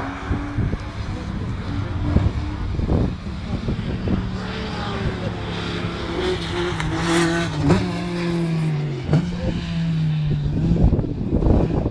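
Rally car engine running under load as the car laps the circuit, its pitch dipping and recovering about nine seconds in. Gusts of wind buffet the microphone.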